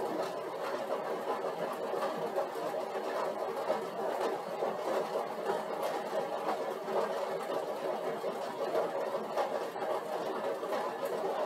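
Upright cycle ergometer whirring steadily as it is pedalled at a constant 150 W load.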